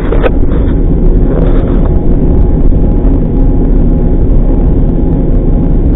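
A loud, steady low rumble with a faint hum running through it.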